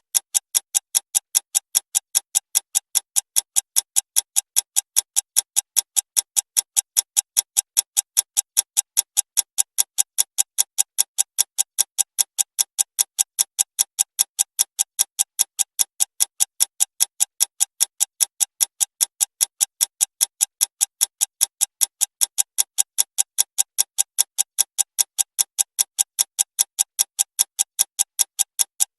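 Clock ticking fast and steadily, about three sharp ticks a second, evenly spaced without a break.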